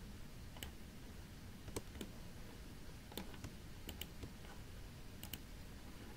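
Faint, scattered clicks of a computer mouse, about nine in all, several coming in quick pairs, over a low steady room hiss.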